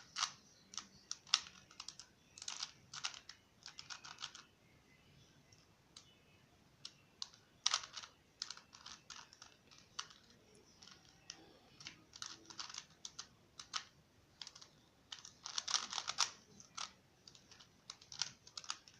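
A Rubik's cube being turned quickly during a solve: its plastic layers click and clatter in rapid bursts, with a few short pauses between runs of turns.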